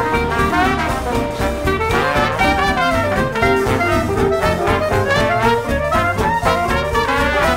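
Upbeat jazzy background music with brass over a steady beat.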